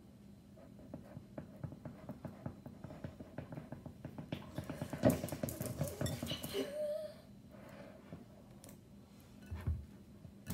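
Homemade glue slime being kneaded and stirred by hand in a bowl: a busy run of small wet clicks and squelches that builds to its loudest about halfway through, then dies down a couple of seconds later.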